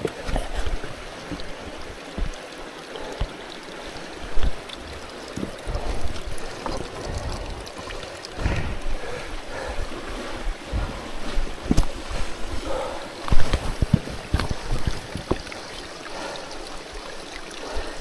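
Scrambling on wet rock: irregular scuffs and knocks of boots and gloved hands on stone and rustling gear, with low thumps against the microphone, over a steady rushing background.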